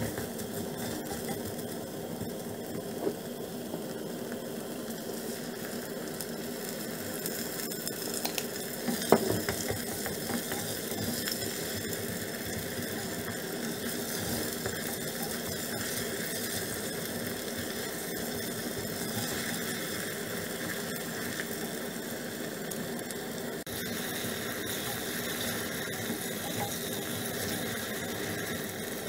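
Chopped onion sizzling in a hot clay pot while a wooden spoon stirs and scrapes it, with a sharp knock about nine seconds in.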